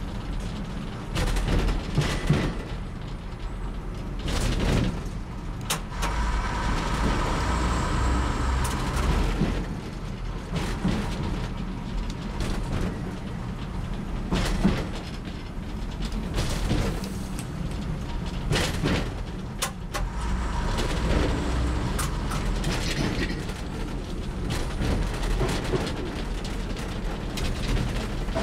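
Class 101 diesel multiple unit running along the line, heard from on board: a steady drone from its underfloor diesel engines, with repeated knocks and clatter from the wheels and running gear. A higher whine comes in for a few seconds about six seconds in, and briefly again after twenty seconds.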